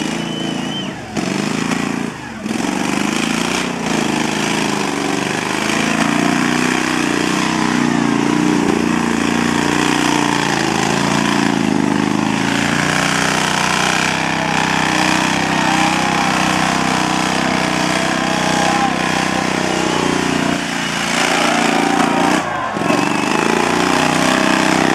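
Ride-on lawn mower engine running steadily, its pitch wavering a little, with voices faintly underneath.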